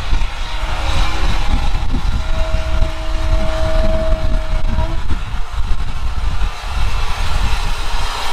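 SE&CR No 65, an O1 class 0-6-0 steam locomotive, easing slowly tender-first up to its carriages to couple on, under a heavy low rumble. A steady tone holds for about three seconds in the middle.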